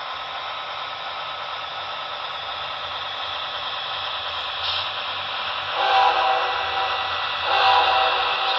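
Locomotive air horn, a first-generation Nathan K5LA chord horn, sounding two blasts about six and seven and a half seconds in, over a steady hiss from the approaching train.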